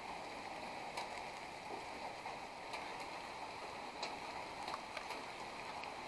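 Steady rushing of a nearby river, an even wash of water noise, with a few faint clicks on top.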